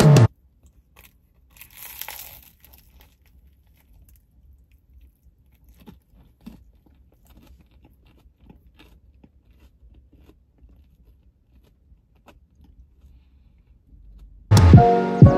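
A person biting and chewing a slice of salad pizza up close: a crisp crunch about two seconds in, then faint, scattered chewing clicks. Music comes in about a second before the end.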